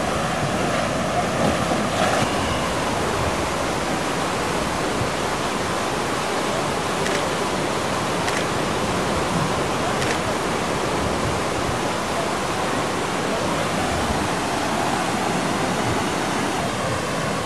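Steady rush of water running down water slides and splashing into their run-out pools, with a few faint clicks in the middle.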